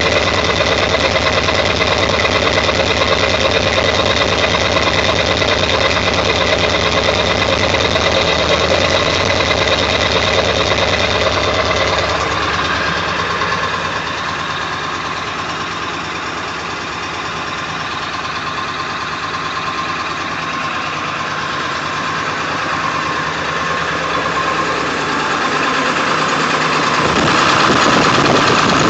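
1999 Ford F-350's 7.3 L Power Stroke turbo-diesel V8 idling roughly with a diesel knock. It is a cold start after sitting for days, and the engine is shaking badly at idle for a reason the owner has not found. The sound grows quieter and duller about twelve seconds in, then louder again near the end.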